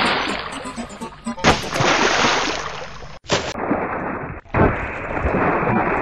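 Splashing, rushing water sound effect, spliced together with several abrupt cuts: a loud fresh surge about a second and a half in, and short dropouts near the middle.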